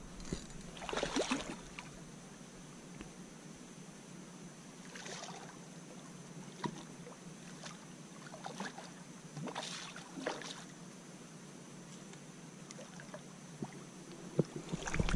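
A hooked redfish (red drum) splashing at the water surface in three short bursts, about a second in, about five seconds in and again near ten seconds, with a few faint clicks between.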